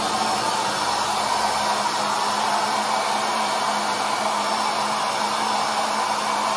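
Handheld electric paint sprayer running steadily, its motor giving a continuous whir with a constant low hum, while very little paint comes out of the nozzle.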